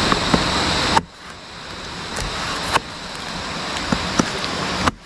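Chopping blows of a blade splitting a felled areca palm trunk lengthwise: three sharp strikes about two seconds apart, with a few lighter knocks between, over a steady rushing noise.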